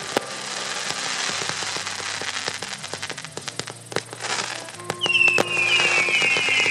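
Fireworks going off: a dense run of sharp pops and crackling, then, about five seconds in, several whistling effects fired in quick succession, each whistle falling slowly in pitch.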